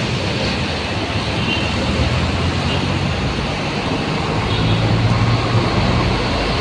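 Road traffic passing close by: engines of cars, a heavy truck and a jeepney running over steady road noise. A low engine drone swells about four and a half seconds in.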